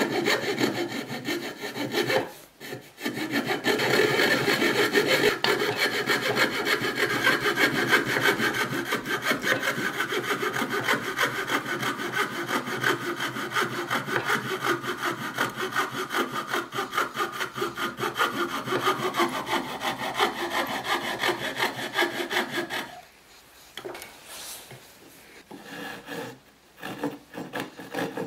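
A hand coping saw cutting through wood in rapid, even back-and-forth strokes. It pauses briefly about two seconds in and stops a little over 20 seconds in, leaving only a few quieter strokes near the end.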